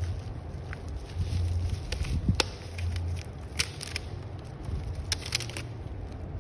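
Packaging being handled for unboxing, giving scattered sharp clicks and crackles, the loudest about two seconds in, over a low rumble that comes and goes.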